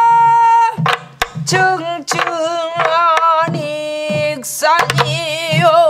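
A woman singing in pansori style, with long held notes and wide vibrato, to her own sori-buk (Korean barrel drum) accompaniment. Low drum thumps and sharp stick clicks fall under and between the phrases.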